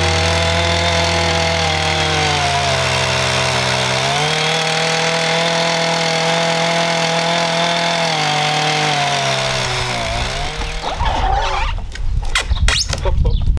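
Stihl MS 880 two-stroke chainsaw on an Alaskan mill, running at high speed as it rips lengthwise through a large log, its pitch sagging and recovering a few times under load. About ten seconds in the engine note falls away, followed by a series of irregular knocks and thumps.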